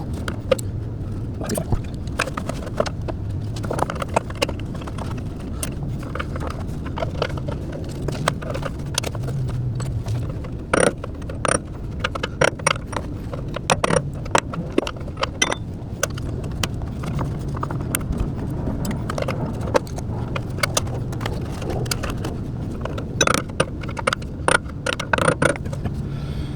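Irregular metallic clinks, knocks and scrapes of hand tools and parts being handled while working on a van's front suspension, over a low hum that comes and goes.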